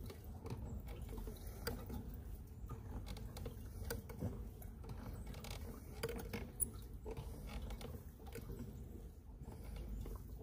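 Faint, irregular clicks and knocks from a fishing kayak and its gear as it moves across calm water, over a steady low rumble.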